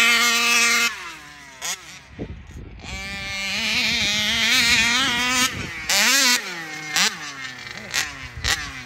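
Small two-stroke gas engine of a 1/5-scale RC buggy held at high revs, dropping off about a second in, then climbing back up over a couple of seconds, followed by short throttle blips about once a second.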